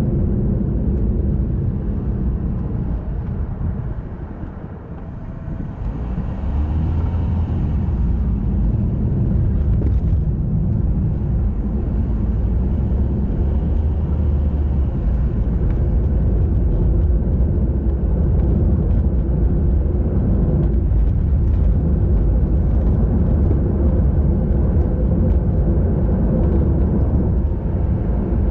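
Steady road-travel noise from riding along a road: a low rumble of wind and tyres. The rumble drops briefly about four to five seconds in, then returns.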